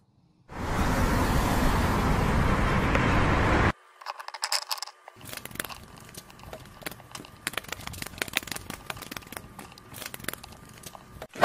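A loud, steady rushing noise lasts about three seconds and cuts off suddenly. It is followed by the light clicking and clattering of small plastic toy pieces being picked up and set down on a table.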